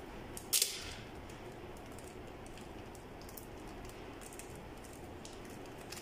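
Adhesive tape torn off a roll in one short rip about half a second in, then faint rustles and clicks of hands working the tape around a small plastic part.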